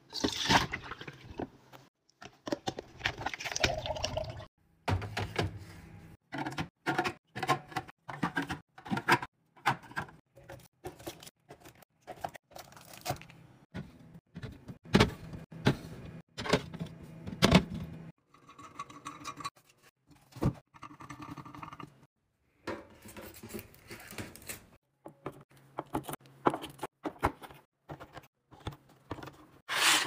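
Pickles and brine poured from a jar into a plastic container, with liquid splashing at the start. This is followed by a long run of knocks, clicks and clatter as bottles and containers are handled and set down.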